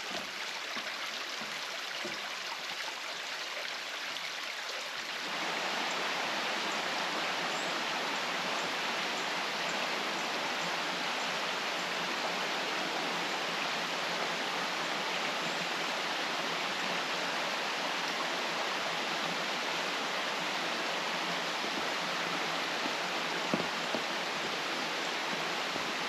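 A stream running over rocks: a steady rushing of water that gets a little louder about five seconds in.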